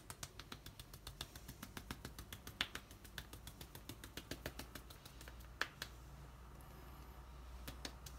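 Small metal tea strainer shaken and tapped while sifting powdered sugar: faint, rapid light ticking, about six a second, with a few louder clicks. It thins out for a couple of seconds before picking up again near the end.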